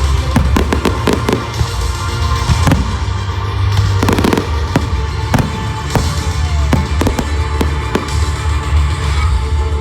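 Fireworks going off in a rapid, irregular string of sharp bangs and crackles, with several close together about a second in and again around four seconds in.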